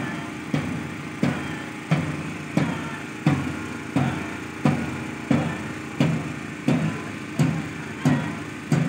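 A drum beaten at a slow, even marching pace, about three beats every two seconds, each beat a short low boom.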